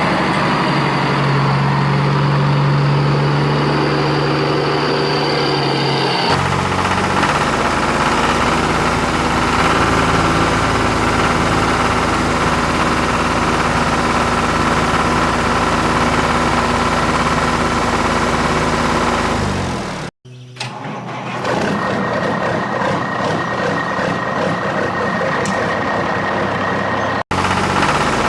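Engine running and idling steadily, changing abruptly about six seconds in and cutting out briefly twice near the end, as one engine recording gives way to another.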